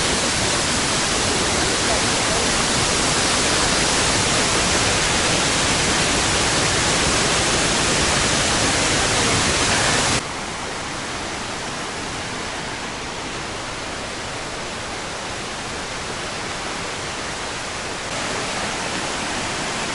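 Roar of Iguazu Falls: a steady, dense rush of heavy falling water. About halfway through it drops suddenly to a lower level and carries on the same.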